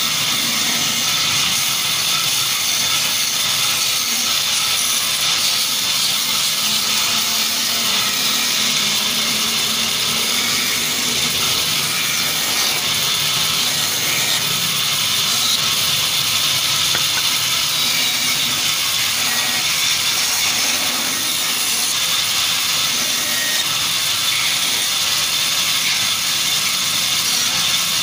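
Band saw running and cutting wooden blanks: a steady noise with a strong hiss, even throughout.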